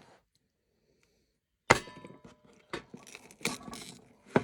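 Kitchen knife cutting fish on a cutting board: a sharp chop about a second and a half in, followed by a few more knocks and some clatter.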